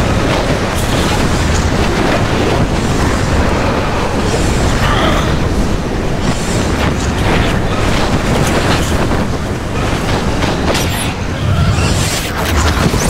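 Film sound effects of a soldier's drop pod plunging toward the drop zone: a loud, continuous rumble and rattle, broken by many hard knocks and crackles.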